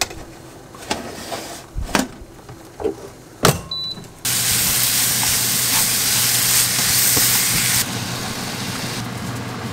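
A few light clicks and taps, then from about four seconds in a loud, steady sizzling hiss of skewered food cooking on a hot grill.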